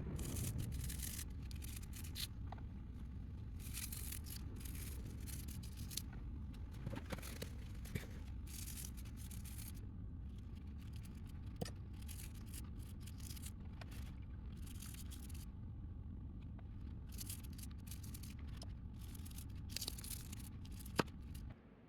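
Repeated scraping and scrubbing strokes with a few sharp clicks, over a steady low hum that cuts off suddenly near the end.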